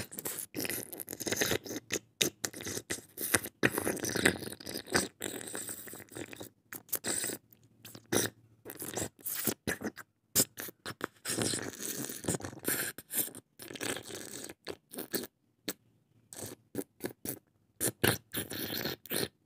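Close-miked eating sounds: chewing in dense runs of irregular crackly clicks, broken by several short pauses.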